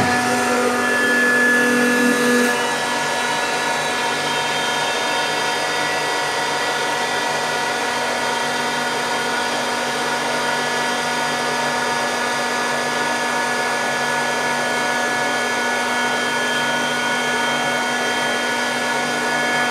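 Fini MiniCUBE 2.2 kW direct-drive rotary screw air compressor started at the push of a button and running. It comes on suddenly, a little louder for the first couple of seconds, then settles into a steady whine of several fixed tones over a hiss. The unit stands without its rubber feet, so some vibration carries into the floor.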